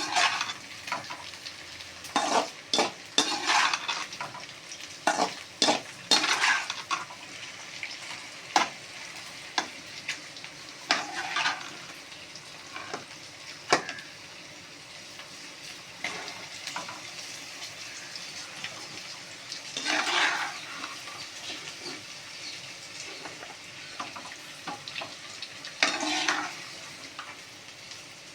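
Okra frying in oil in a kadai and being stirred with a spatula: irregular scrapes and clinks of metal against the pan, some in quick runs, over a steady faint sizzle.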